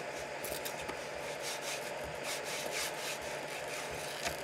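A sheet of paper slid back and forth between a 3D printer's nozzle and its bed, rubbing and scraping in short, irregular strokes while the bed is levelled by feeling the nozzle's drag on the paper. A steady low hum runs underneath.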